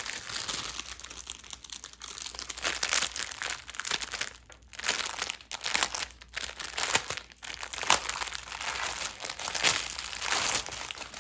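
Packaging crinkling and rustling as it is handled and unwrapped by hand, a continuous crackle in quick bursts with a couple of short pauses.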